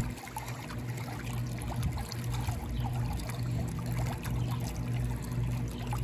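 Pool water trickling and lapping, over a steady low machine hum.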